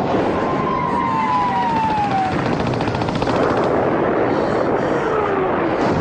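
Battle sound effects: a dense, steady rumble of gunfire and explosions, with a long falling whistle about a second in and another near the end, and a brief rapid rattle like machine-gun fire in the middle.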